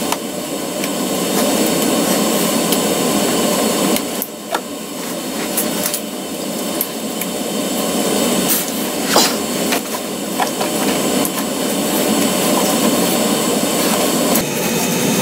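Hand-tool work on a car's engine bay while the serpentine belt is worked back onto its pulleys: continuous scraping and rubbing with sharp clicks and knocks now and then.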